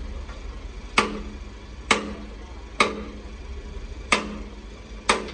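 Hammer blows on metal, five strikes about a second apart, each ringing briefly.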